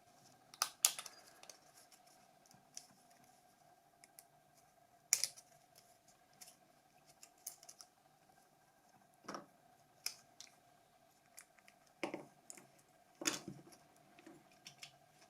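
Small parts of a Nokia 5210 mobile phone and tools being handled and set down on a work surface during disassembly: a dozen or so scattered light clicks and taps, a few louder ones about a second in, around five seconds in and near the end, over a faint steady hum.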